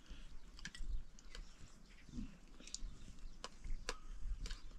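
Scattered light clicks and taps of dishes and cutlery as people eat, with a few faint, brief animal calls and a low rumble of outdoor air underneath.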